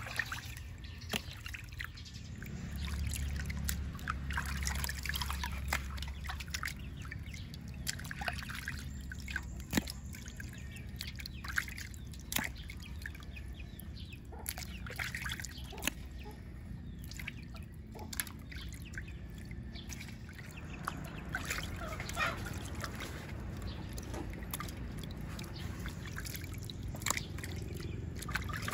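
Water trickling and dripping, with scattered short clicks and knocks.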